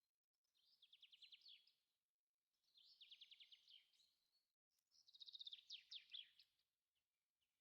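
Songbird singing faintly: three high, quick trilled phrases about a second long each, separated by short pauses.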